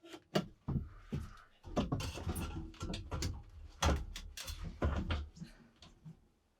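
A quick, irregular run of wooden-sounding knocks and clunks, with scraping about two seconds in, dying away near the end.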